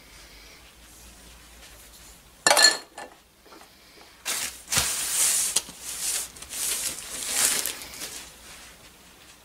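A sharp metal clink with a brief ring about two and a half seconds in. Then, for about four seconds, a plastic bag is crinkled and rustled in uneven bursts.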